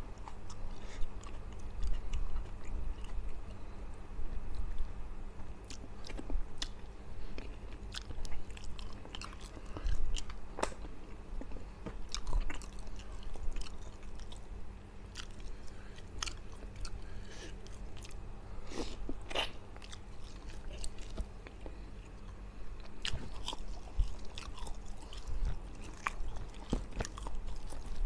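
A person chewing a mouthful of rice and fish close to the microphone, with many irregular sharp mouth clicks and smacks.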